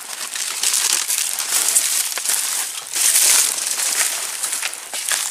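Dry grass and dead leaves crackling and crunching as people walk through scrub, loudest about three seconds in.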